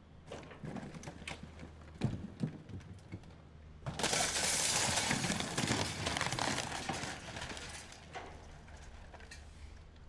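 Excavator demolishing a brick and timber building: cracking and knocking of wood and brick, with two sharp impacts about two seconds in. From about four seconds in comes a long loud crash of debris falling, which dies away over the next few seconds, over the low steady drone of the excavator's engine.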